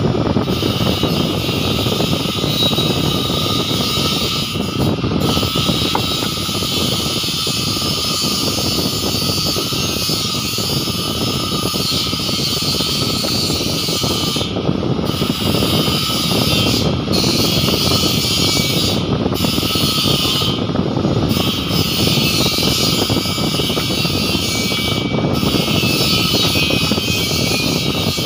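Steady, loud rushing noise with no clear rhythm, like a running blower or machinery.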